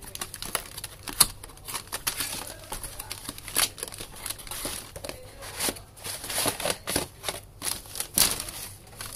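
Plastic bags and cardboard packaging crinkling and rustling in irregular handling noises as a boxed shaver is unpacked by hand.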